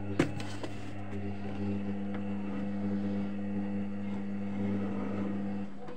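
Arçelik 3320 washing machine giving off a steady low electrical hum, with a click just after the start. The hum cuts off suddenly shortly before the end.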